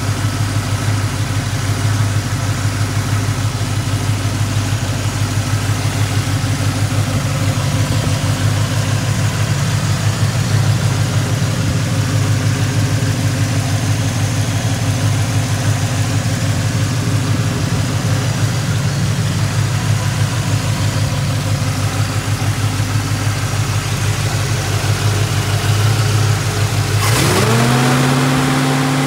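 1967 Chevrolet Chevelle's V8 engine idling steadily with a rapid, even pulse. Near the end it is revved up and held at a higher speed.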